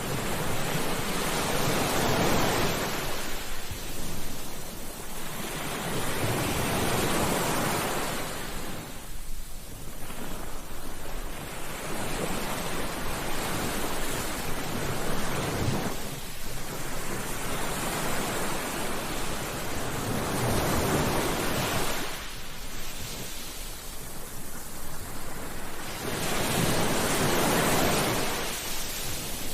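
Ocean waves breaking on a beach in a continuous wash of surf, swelling and falling back every few seconds.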